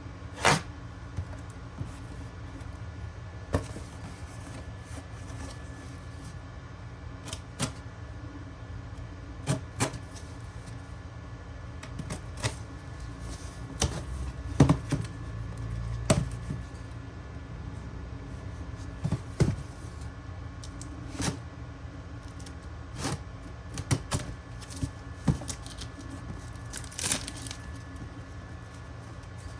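Irregular clicks and taps from handling a shoe box and new sneakers during an unboxing, over a steady low hum.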